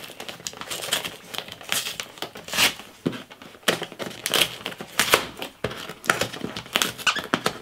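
Cardboard mailer box being torn open by hand: irregular ripping and crinkling of cardboard and paper, in quick uneven strokes.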